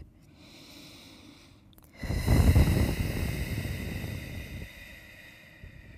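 A woman breathing during a seated forward-fold stretch: a quiet breath in, then about two seconds in a long, loud breath out that slowly fades away.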